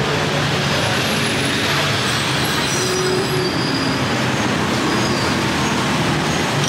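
Steady roadside traffic noise with the general hum of a busy street-food stall.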